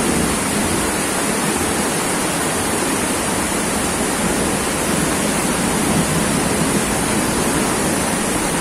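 Torrential rain and floodwater rushing down a street, a steady dense rush with no breaks.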